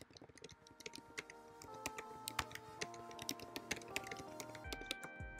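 Typing on a computer keyboard: irregular, quick key clicks. Soft background music of held notes comes in about a second and a half in.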